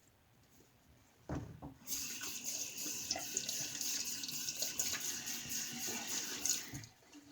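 Bathroom sink tap running for about five seconds, rinsing lather off the razor, after a knock as the tap is turned on; the water cuts off sharply near the end.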